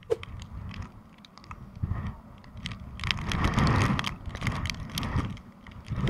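Typhoon wind buffeting the microphone in gusts, swelling strongest a few seconds in, with scattered sharp ticks of rain drops striking the camera.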